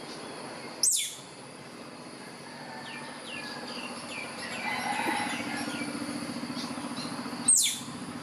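White (albino) squirrel giving two sharp, high calls that fall steeply in pitch, each lasting a fraction of a second, one near the start and one near the end: calling for a mate.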